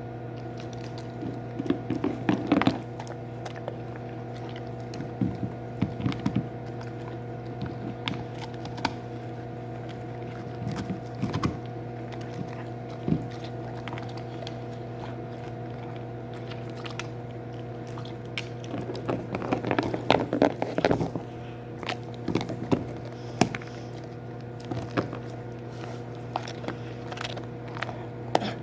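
A dog crunching and chewing a hard, crunchy dog cookie in irregular bouts, loudest around two seconds in and again around twenty seconds in.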